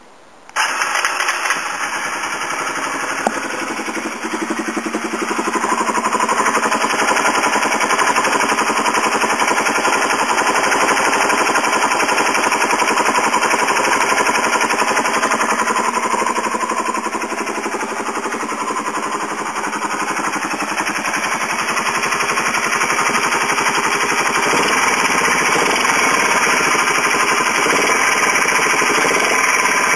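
Kawasaki Super Sherpa's 250 cc single-cylinder four-stroke engine starts about half a second in, then runs with a rapid mechanical clatter. The clatter is an abnormal engine noise that the owner takes for a fault somewhere in the cylinder head or piston.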